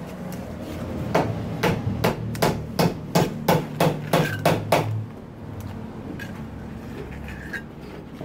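Steel trowel tapping and patting wet cement mortar around a utility box set in a concrete block wall: a quick, even series of sharp taps, about two to three a second, that stops about five seconds in.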